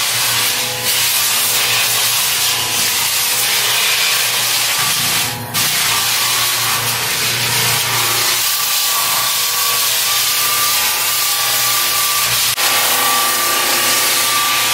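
Walk-behind drum floor sander running steadily, its abrasive drum grinding across plywood subfloor to level the lips between warped sheets; a steady motor hum sits under the loud grinding, which dips briefly about five seconds in.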